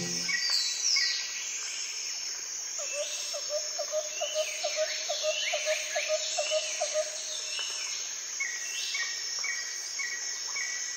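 Outdoor nature sound of birds and insects: a steady high insect drone, with birds giving repeated short, falling chirps. About three seconds in, a quick run of short low notes, about three or four a second, lasts for about four seconds.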